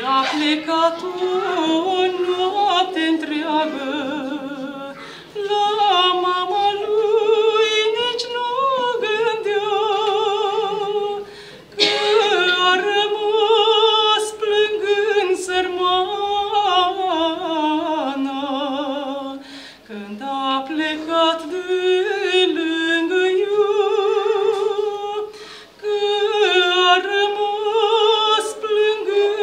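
A woman singing a Romanian Orthodox pricesnă (devotional song) solo, in long held notes with a wide vibrato, her phrases broken by four short pauses.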